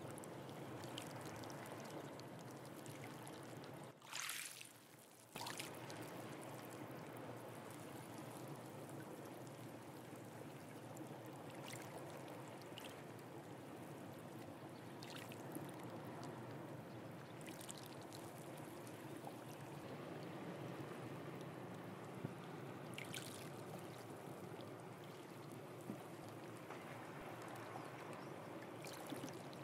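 Soft, steady rush of calm sea water washing and trickling over tide rocks. It briefly drops away for about a second about four seconds in.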